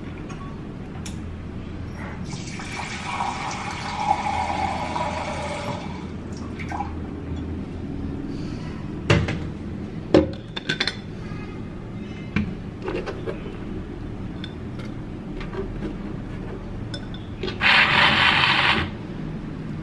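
Kitchen tap water running for about four seconds, then a few knocks and clatters of handling. Near the end comes a short burst of about a second from a personal blender blending peach purée.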